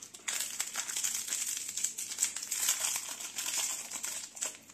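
A foil-lined paper blind-bag packet being torn open and crinkled in the hands, a dense continuous crackling that starts a moment in and lasts about four seconds.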